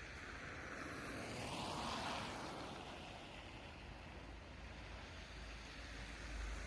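City street traffic noise, with a vehicle passing by about two seconds in.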